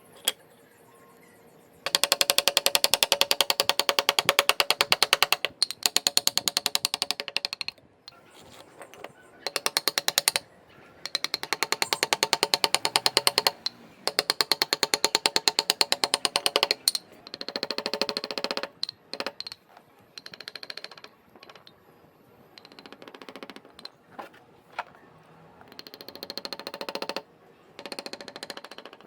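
A handheld power tool working wood in on-off bursts of rapid, even pulsing: one long run of about five seconds, then shorter runs stopping and starting.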